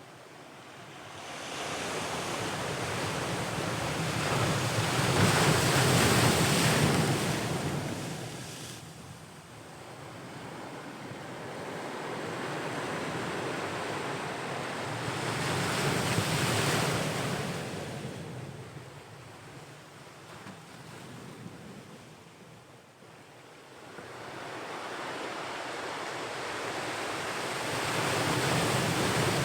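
Ocean waves breaking and washing ashore, the surf swelling and fading three times, about one wave every ten seconds.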